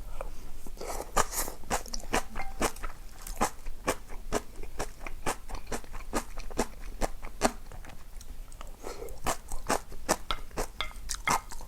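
Close-miked chewing with many sharp, irregular crunches: a mouthful of crisp food being bitten and chewed.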